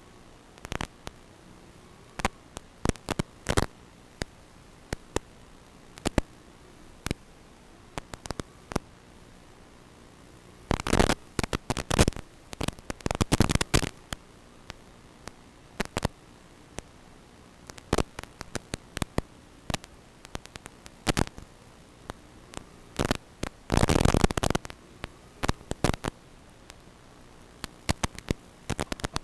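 Crackling static: a steady hiss broken by frequent sharp clicks, with denser runs of crackle about eleven, thirteen and twenty-four seconds in.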